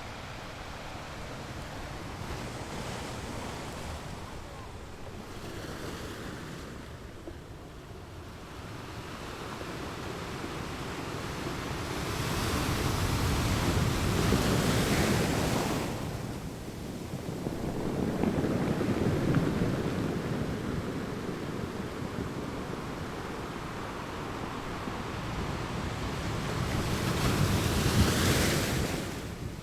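Sea waves breaking and washing on the shore, swelling and ebbing. The three louder surges come about 12 seconds in, about 18 seconds in and near the end.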